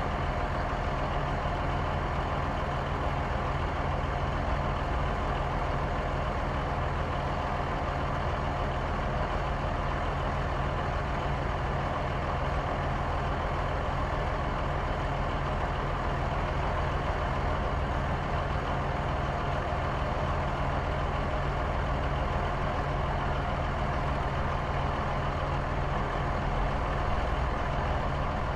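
Motor-vehicle engines running, a continuous, even engine hum like mixed road traffic, with no breaks or sudden events.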